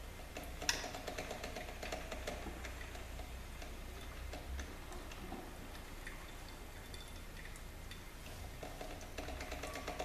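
1980s Norelco drip coffee maker brewing, its heater sputtering hot water up to the basket with an irregular run of small crackling clicks and pops, and a sharper click about a second in.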